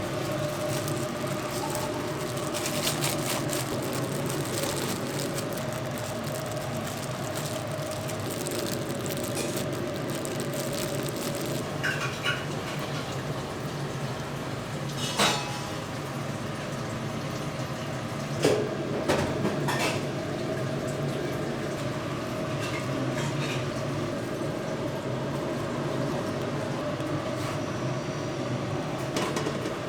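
Restaurant kitchen sounds: a steady machine hum runs throughout, with a few sharp clinks of dishes and utensils, most of them in the middle of the stretch.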